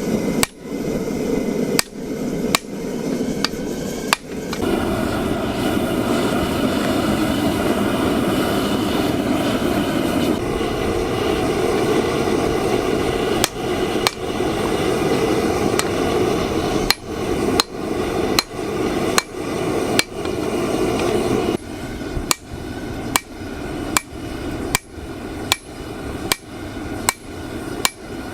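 Hand hammer striking 5160 steel, forging a bush-knife blank. There are a few scattered blows at first, then a steady run of about two strikes a second in the last third, all over a continuous rushing noise.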